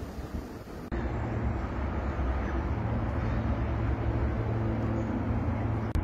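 Wind on the microphone for about the first second, then an abrupt cut to a steady low mechanical hum with several held low tones, like a running engine.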